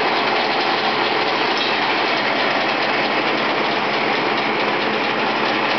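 Diesel-engine-driven peanut sheller running steadily at full noise while unshelled peanuts are poured into its hopper.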